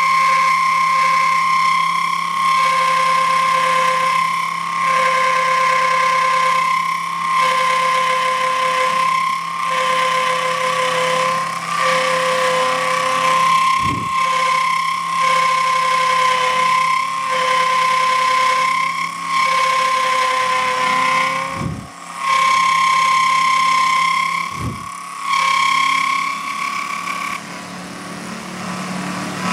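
Home-built mini milling machine, driven by an Emco Unimat SL1000 universal brushed motor and belt, cutting a slot in a metal lock faceplate with an end mill. The steady high whine dips briefly about every two seconds, and a few low bumps come through partway.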